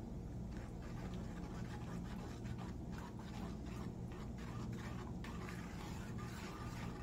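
A spoon stirring a thick creamy mixture in a metal bowl, with short scraping strokes about twice a second over a steady low hum.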